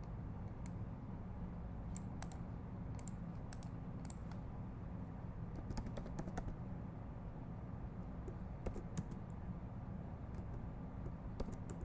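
Typing on a computer keyboard: light, irregular keystroke clicks, a few in quick succession about six seconds in, over a steady low hum.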